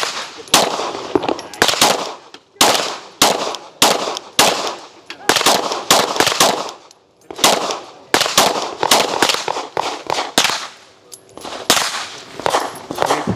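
Strings of gunshots fired in quick succession, about two to three a second, each a sharp crack with a short echo, with brief pauses about seven and eleven seconds in.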